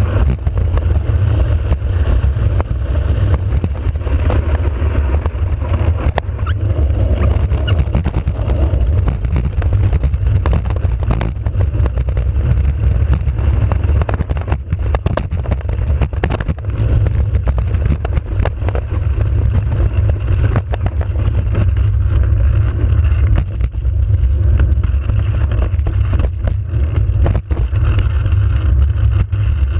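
Soapbox cart running fast downhill on an asphalt road: a heavy, steady low rumble from the wheels and the ride, with frequent short clicks and knocks as the cart jolts over bumps.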